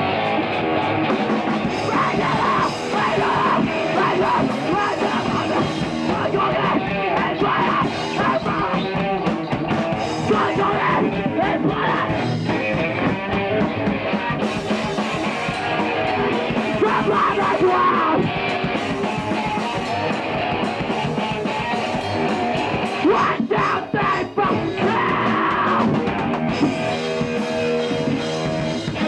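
Loud punk rock music: a rock band with electric guitar and drum kit, with yelled vocals.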